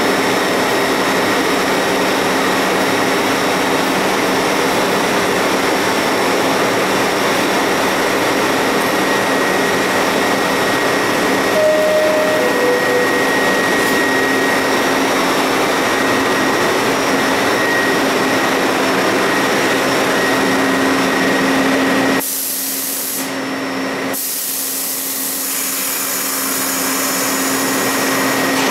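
Stationary R62A subway train humming steadily at an underground platform, with a two-note descending door chime about 12 seconds in as its doors close. About 22 seconds in, the low hum cuts out abruptly and a high hiss continues.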